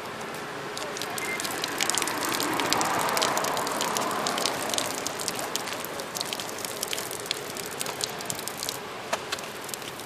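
Water from a pedestal drinking fountain spurting out and splattering into its bowl, a steady rush with many small drip and splash ticks, swelling about two seconds in and easing off after the middle.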